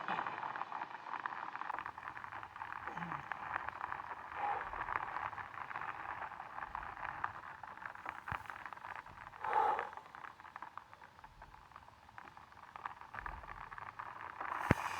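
Steady patter of falling rain, a continuous hiss of fine drop ticks. A brief louder sound about ten seconds in and a sharp click near the end.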